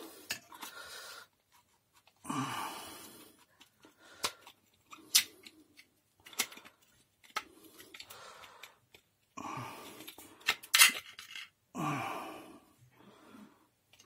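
Handling noise of a vacuum cleaner's electric motor being taken apart by hand: its plastic and metal parts clicking and scraping as the armature is pulled out of the housing, with several sharp clicks scattered through and short stretches of rubbing between quiet gaps.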